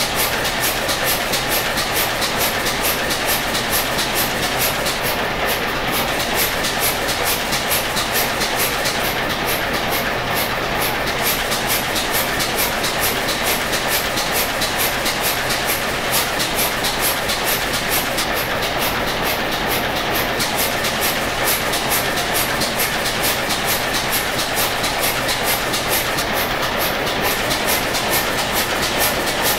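Large old stationary diesel engine running steadily, with a fast, even rhythmic beat that holds the same pace throughout.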